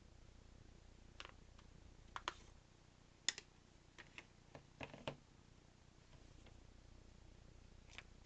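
Scattered small clicks and taps, a dozen or so at uneven intervals, the loudest about three seconds in: handling and taking apart a mobile phone.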